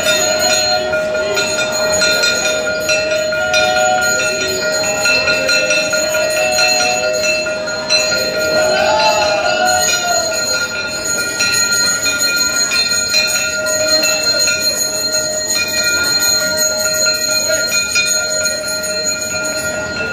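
Temple bells ringing without a break during aarti, their strokes blending into one steady, ringing clang.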